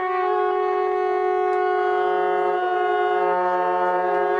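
Ram's horn shofar blown in one long, held blast at a steady pitch, with a short pitch break at the very end.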